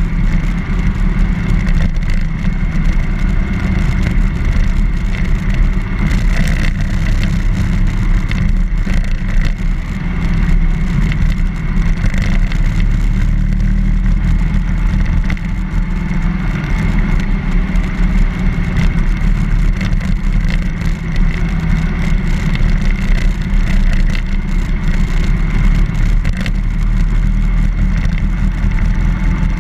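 BMW R1200GS motorcycle's boxer-twin engine running at a steady pace on the road, mixed with heavy wind rumble on the microphone.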